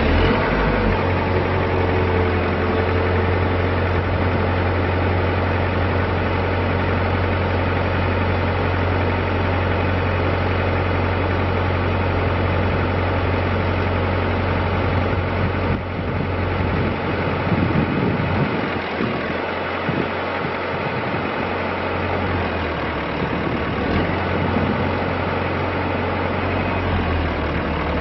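Komatsu PC130-8 excavator's four-cylinder diesel engine idling steadily just after a start. The low engine note wavers and shifts for a few seconds past the halfway point, then steadies again.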